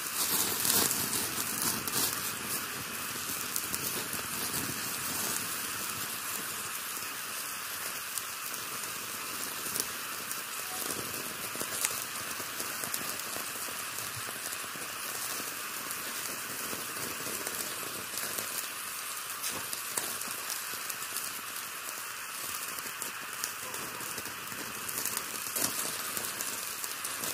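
Meat sizzling on a wire grill over hot charcoal: a steady hiss with scattered crackles and pops, a little louder about a second in and again near the end.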